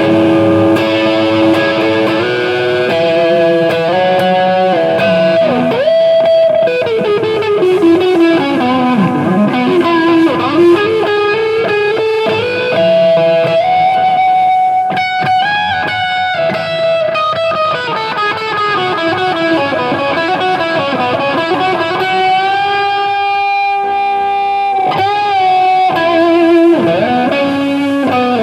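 Kawai Rockoon RF-37 electric guitar played through a Marshall JCM900 amp with its clean channel driven to crunch: a loose single-note lead with sustained notes that bend and swoop in pitch.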